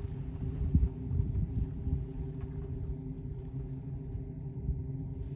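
Wind buffeting the microphone in uneven gusts over a low, steady hum.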